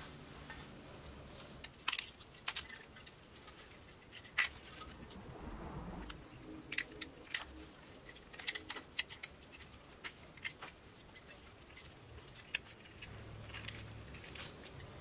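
Scattered sharp metallic clicks and taps from the small pressed-steel roof panel of a 1960 Tonka toy truck as it is handled and worked on in gloved hands, with a quick run of clicks about halfway through.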